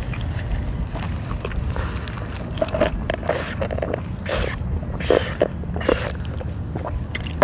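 Close-up chewing and biting of a breakfast sandwich, with irregular moist crunchy strokes over a steady low rumble.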